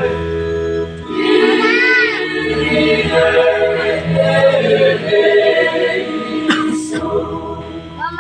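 A mixed choir of high-school boys and girls singing, holding long notes with vibrato.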